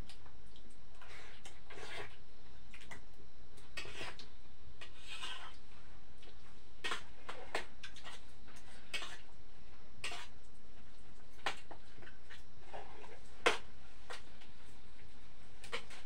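Scattered light clinks and scrapes of a spoon and fingers against steel plates during a meal, with one sharper clink late on.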